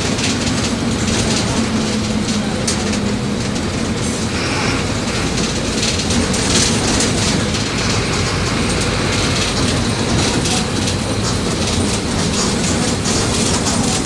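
Mercedes-Benz OM 924 LA four-cylinder inline diesel engine of an OF-1722M city bus running steadily, with a rattle of loose parts over the engine note.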